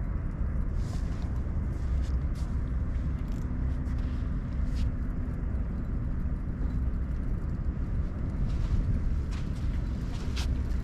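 Steady low outdoor rumble with a faint steady hum joining about two seconds in, and a few faint scattered ticks.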